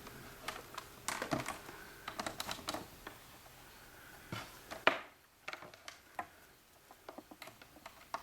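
Irregular small clicks and plastic knocks of AV cables being handled and their plugs pushed into sockets, with one sharper click about five seconds in.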